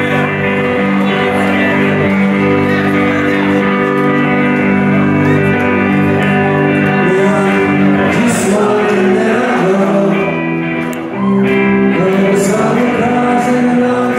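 Live rock band playing loud through a venue PA, with electric guitars over bass and drums, with a brief dip in loudness about eleven seconds in.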